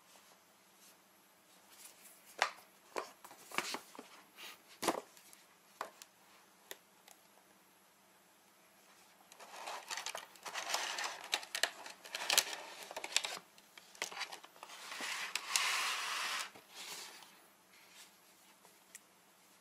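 Cardboard goggle box being handled and opened: a series of light taps and knocks, then several seconds of packaging rustling and crinkling as the contents are lifted and pulled out.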